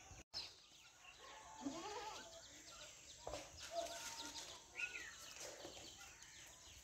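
A goat bleats once, about two seconds in, while small birds chirp in the background. The sound drops out for a moment just after the start.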